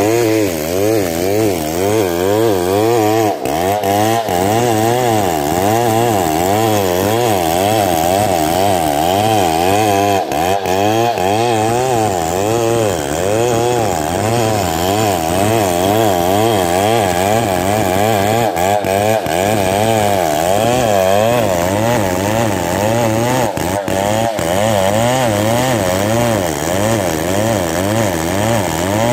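Stihl 070 two-stroke chainsaw running at full throttle under load, ripping lengthwise along a log. The engine note wavers rapidly up and down as the chain bites into the wood.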